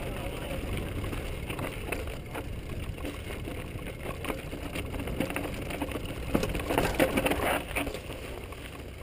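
Mountain bike rolling down a loose rocky trail: tyres crunching over stones, with scattered clicks and knocks of the bike rattling over the rocks on top of a steady low rumble. The rattling gets denser and louder about seven seconds in.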